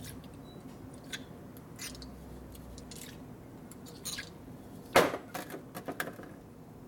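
Brief hisses from an aerosol can of penetrating spray, wetting the rusty threads of a rod held in a bench vise, then a sharp metallic clack about five seconds in, followed by a few lighter clicks.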